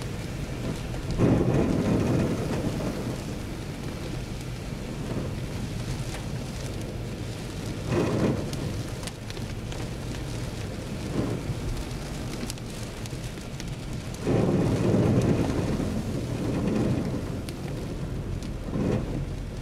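Heavy rain on a car's windshield and body, heard from inside the moving car as a steady wash of noise with irregular louder surges, the longest a few seconds long about two-thirds of the way through.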